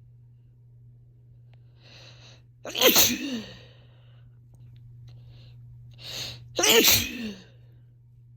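A person sneezing twice, about four seconds apart, each sneeze preceded by a short in-breath.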